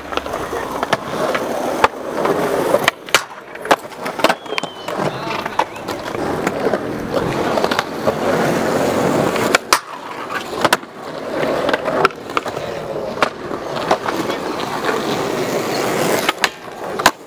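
Skateboard wheels rolling over concrete with a steady rumble, broken again and again by sharp clacks of boards hitting the ground.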